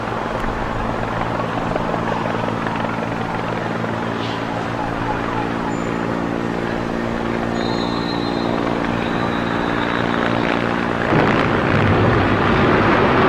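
A steady mechanical drone with an even hum, like an aircraft engine, giving way about eleven seconds in to a louder rushing noise.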